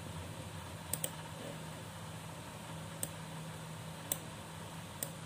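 Sharp clicks of a computer mouse: a quick pair about a second in, then three single clicks roughly a second apart, over a faint steady low hum.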